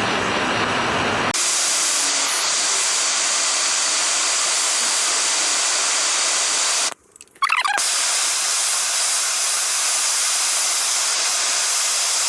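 MAPP gas torch flame hissing steadily as it heats an aluminum rim to flow a repair rod into a crack. About a second in, the lower roar gives way to a thinner, higher hiss; the hiss drops out briefly about seven seconds in, then resumes.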